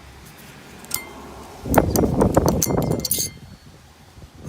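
Metal parts being handled: a few light clicks, then about a second and a half of dense clattering and rattling, ending in a bright metallic clink.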